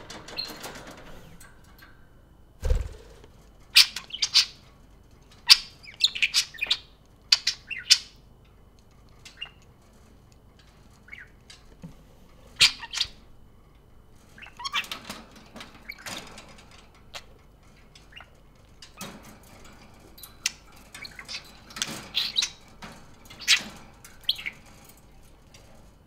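Budgerigars chirping and squawking in short, scattered calls that come in clusters, with one loud low thump about three seconds in.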